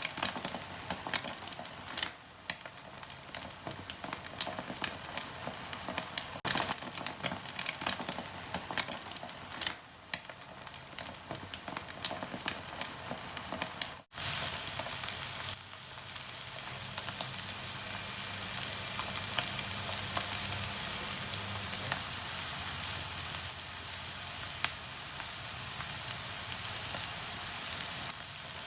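Thai omelette (khai jiao) frying in hot oil in a pan: crackling with many sharp pops for the first half. A brief break comes about halfway, then a denser, steadier sizzle.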